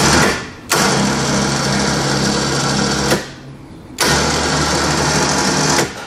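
Bulldog Powersports Series 2500 lb electric ATV winch, a 1 HP motor through a 3-stage planetary gear, running twice for about two seconds each, with a steady motor hum, after a short clatter at the start. This is the first test run of the newly wired winch, and it is working correctly.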